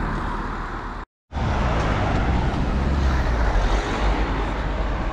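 Cars passing on a road, a steady traffic rumble, with a car driving by close in the later part. The sound drops out completely for a moment about a second in.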